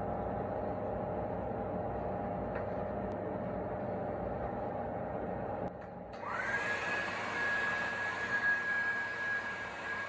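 A small electric motor runs with a steady hum, then stops a little past halfway. A high-pitched motor then spins up with a quickly rising whine and runs steadily at speed.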